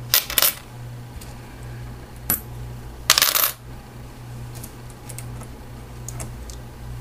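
Nickels clinking as they are set down in small handfuls onto stacks on a digital scale: a quick cluster of clinks at the start, a single clink after about two seconds and the loudest cluster about three seconds in, then fainter scattered clicks. A low steady hum runs underneath.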